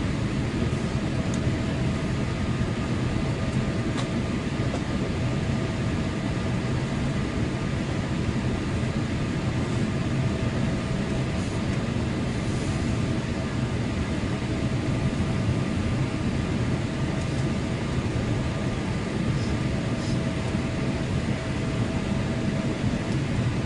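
Steady cabin noise of a Boeing 787 in flight, heard inside the cabin at a window seat: an even rumble of engines and rushing air with a faint steady tone on top.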